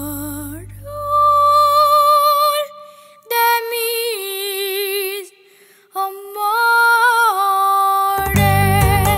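A female voice singing three slow phrases of long held notes with vibrato over a fading low drone; near the end a band with strummed strings and bass comes in.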